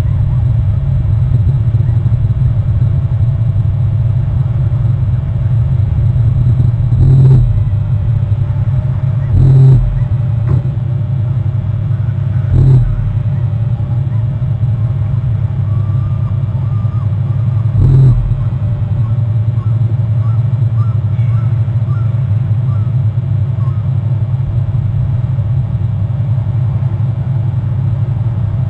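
A steady low rumble with four short thumps scattered through it, at about seven, ten, thirteen and eighteen seconds in.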